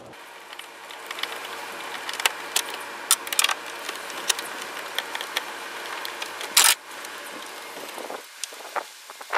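Plastic reservoir being worked loose from its mounting by hand: a run of sharp plastic clicks, knocks and rattles, with a louder clatter about six and a half seconds in, over a faint steady hum.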